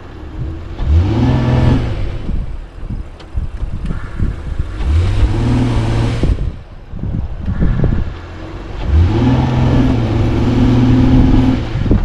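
Honda Passport's 3.5-litre V6 revved hard three times, each rev climbing quickly and then held for a second or more, with a hiss of effort between them: the stuck SUV straining to pull out of a deep mud rut without moving.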